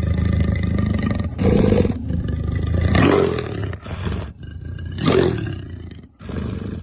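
Leopard calling: a run of deep, rasping roars over a continuous low growl, with about four louder calls spaced a second or more apart.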